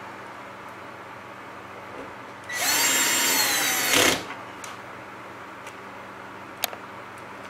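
Cordless drill/driver running for about a second and a half, about two and a half seconds in, with a steady motor whine, driving a screw into the moving-head light's housing. A single sharp click follows about a second before the end.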